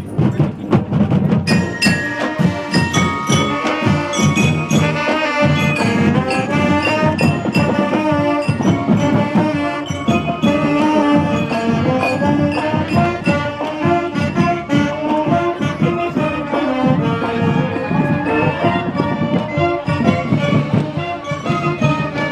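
High school marching band playing a tune as it marches past, with sousaphones and other brass over a steady beat of marching drums.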